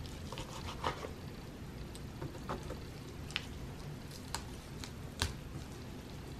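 A small utility knife cutting raw chicken thigh meat away from the bone on a wooden cutting board: faint wet squishing with scattered light ticks.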